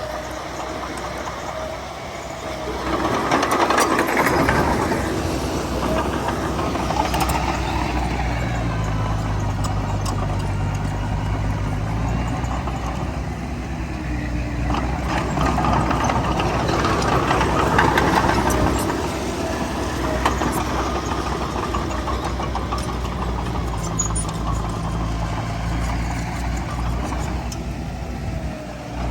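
Heavy diesel engine of earthmoving machinery running steadily, revving up under load twice, about three seconds in and again around sixteen seconds.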